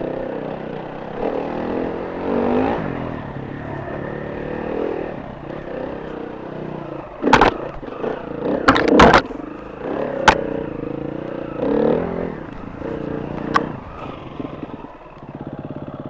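Enduro motorcycle engine running, its revs rising and falling, with several sharp knocks and clatters in the middle. Near the end it settles into an even, pulsing idle.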